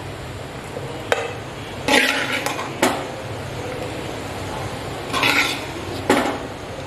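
Steel spoon scraping and knocking against a metal pot as crumbly upma is scooped out: a few sharp clinks and two longer scrapes.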